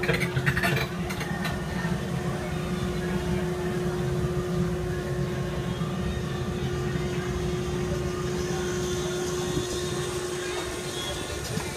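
Steady low rumble with a constant hum while riding in a Ferris wheel gondola, with a few faint clicks in the first second or so.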